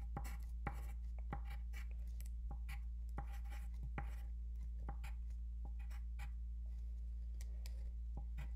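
Pencil writing on paper on a wooden tabletop: a run of short, irregular scratches and taps as numbers are written out. A steady low hum sits underneath.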